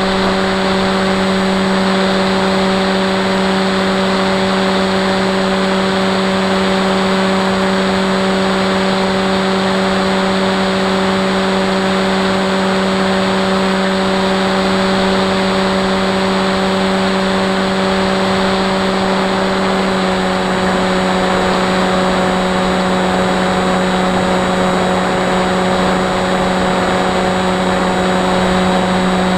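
Electric motor and propeller of a Sweepwings Flinch FPV flying wing, heard from its onboard camera: a steady, even-pitched buzzing hum over rushing air hiss.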